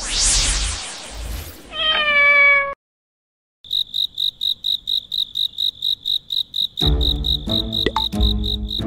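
A whoosh and a short rising chime, then after about a second of silence a cricket chirping evenly, about four chirps a second. Background music with a beat joins the chirping about seven seconds in.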